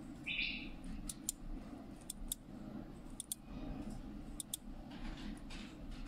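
Self-locking push-button power switch (Toneluck PWL-2P1T) being pressed repeatedly: four sharp double clicks, about one a second, as the spring-loaded plunger goes down and latches or releases. A brief rubbing sound of fingers on the switch comes just before the first click.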